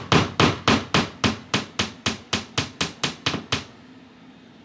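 A hammer tapping a nail into drywall with quick, even strokes, about four or five a second, stopping about three and a half seconds in.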